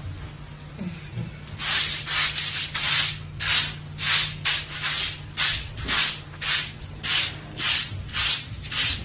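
Hand broom sweeping a floor with quick, even swishing strokes, about two a second, starting about a second and a half in.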